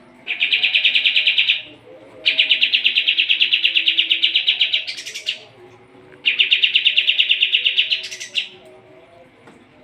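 Kapas tembak singing three loud bouts of very fast, buzzy trilled song: the first about a second long, the second nearly three seconds, the third about two. Each bout ends in a brief higher, shriller flourish.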